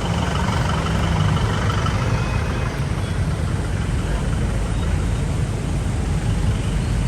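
Steady rumble of road traffic, vehicle engines running with no break or sudden event.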